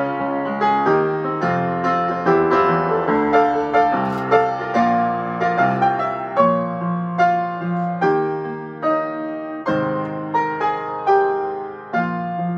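Solo upright piano being played: single notes and chords struck about one or two a second and left to ring out.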